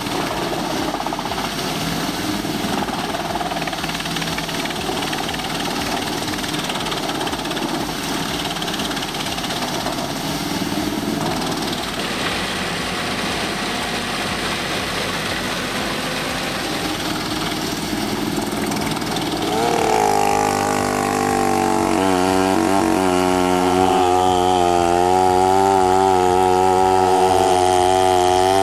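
Industrial wood chipper running with a steady, dense noise as it chews forest scrap. About twenty seconds in it gives way to an old chainsaw's engine running, its pitch wavering up and down.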